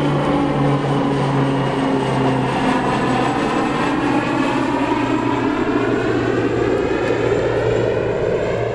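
Twin-engine turboprop airplane passing low overhead: a loud, steady propeller drone whose pitch drops slightly as it goes by.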